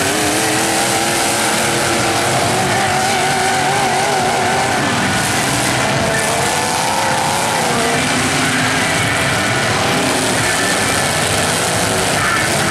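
Engines of several demolition derby trucks revving hard over one another, their pitch wavering up and down as they accelerate across the dirt arena.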